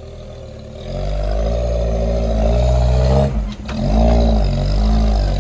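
Off-road 4x4's engine revving under load as it climbs a steep wall. The revs rise about a second in, drop briefly with a couple of knocks midway, then pick up again.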